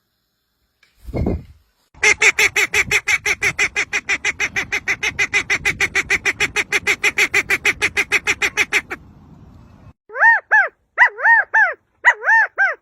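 A bird calling: a long run of rapid, harsh pulses at about six a second, then three pairs of short honking notes that rise and fall in pitch near the end. A brief low thump comes about a second in.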